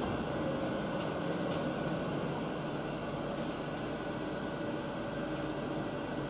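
Steady whirring hum of a CNC mill-turn machine running, its milling spindle turning a corncob roughing cutter, with a few faint steady tones in the hum.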